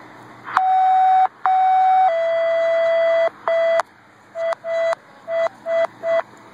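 Loud electronic alert tones: a steady tone with one brief break, stepping down a little in pitch about two seconds in, then a run of five short beeps.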